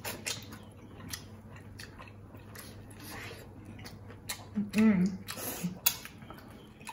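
Close-miked eating: biting and chewing of corn on the cob and a boiled prawn, with many short wet mouth clicks. A short hum of voice comes about five seconds in.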